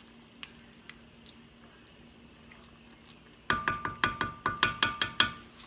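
Metal spoon striking a metal cooking pot: a quick run of about a dozen sharp clanks, some six a second, with the pot ringing under them. It comes about three and a half seconds in and stops just before the end.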